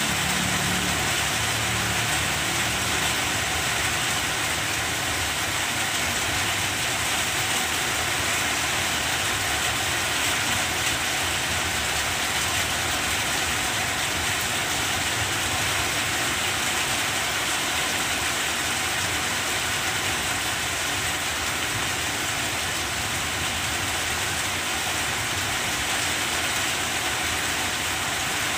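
Steady rain pouring down, a constant even hiss that does not let up.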